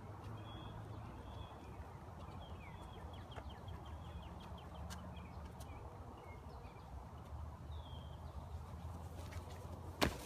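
Small songbirds calling in the woods: scattered high chirps, a quick run of short repeated notes a few seconds in, and a downward slurred note later, over a steady low rumble. A single sharp knock near the end.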